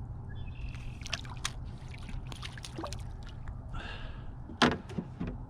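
Water trickling and lapping around a kayak with scattered light clicks and knocks as a caught perch is handled and unhooked, a louder sharp knock about four and a half seconds in, over a steady low rumble.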